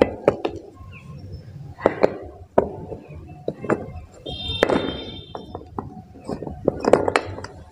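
Sharp snaps, clicks and clinks of hard chalky bars being broken and handled on a steel plate. A short ringing tone sounds about five seconds in.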